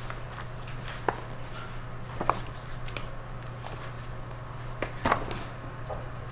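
Courtroom room tone: a steady low hum with a few light clicks and knocks, the sharpest about a second in, just after two seconds and about five seconds in.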